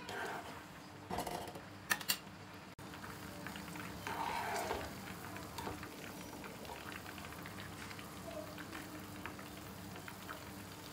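Melted butter simmering in a pan as it clarifies into ghee, bubbling and crackling softly as the milk solids foam and the water cooks off, while a wooden spoon stirs it. A few sharp clicks sound about two seconds in.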